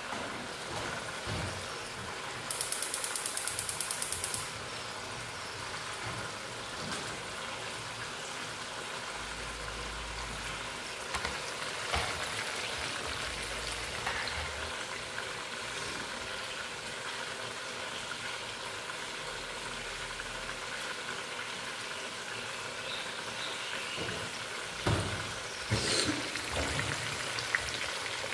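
Breaded steaks frying in hot oil in a pan, a steady sizzle. About two and a half seconds in comes a rapid run of clicks lasting about two seconds, and later there are a few single knocks of cookware.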